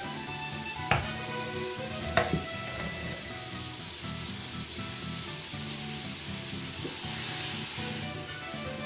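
Mushrooms frying in butter in a frying pan, a steady sizzle, with two sharp knocks about one and two seconds in.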